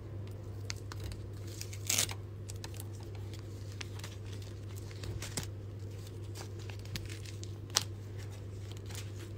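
A steady low hum with scattered faint clicks and crackles. The sharpest click comes about two seconds in and another near the end.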